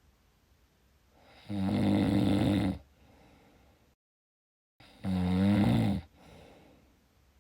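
A person snoring: two long pitched snores, one about a second and a half in and one about five seconds in, the second wavering in pitch. Just before the second snore the sound drops out completely for under a second.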